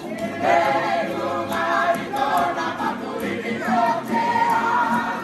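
A group of mostly men's voices singing loudly together, accompanied by strummed ukuleles and acoustic guitars; the singing swells strongly about half a second in.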